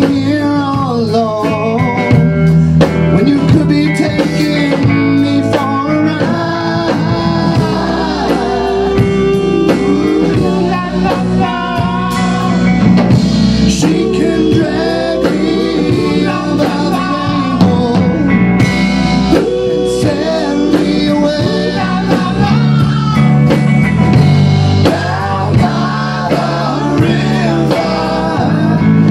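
A rock band playing live: electric bass, a single-cut electric guitar and a Tama drum kit, with a man singing over them.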